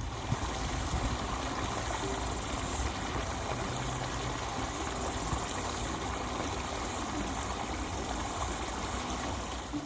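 Steady rushing, hissing water sound from a geothermal pool or vent, unbroken and even in level.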